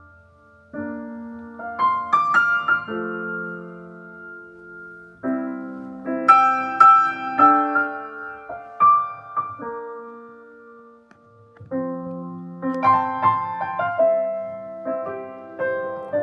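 Recorded solo piano introduction to a song, played back over a hi-fi loudspeaker system: struck chords and melody notes that ring and fade, in phrases that swell and fall away.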